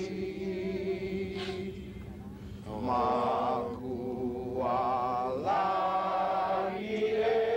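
Chanting voices in long held notes with a wavering vibrato over a steady low drone, dipping softer about two seconds in and swelling again a second later.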